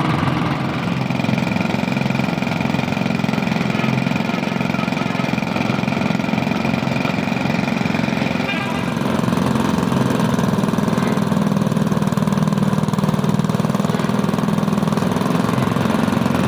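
Sugarcane juicer machine running steadily, a continuous mechanical drone. A thin high whine sounds in the first half and drops out about halfway, after which the running gets a little louder.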